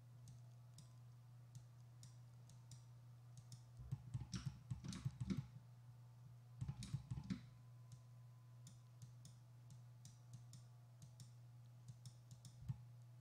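Faint clicking of a computer mouse over a low steady hum, with two clusters of quick clicks about four and seven seconds in and single clicks in between.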